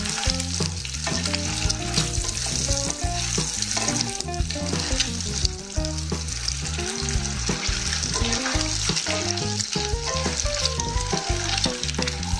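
Whole boiled eggs frying in hot mustard oil in a wok, sizzling steadily, with the clicks and scrapes of a wooden spatula rolling them so they don't burst in the oil.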